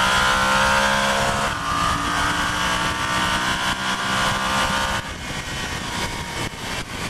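Yamaha Super Ténéré 1200's parallel-twin engine pulling hard under full throttle at high speed, with heavy wind rush. The engine eases off about five seconds in.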